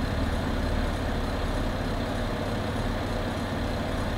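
A steady low rumble with a faint hiss above it, unchanging in level.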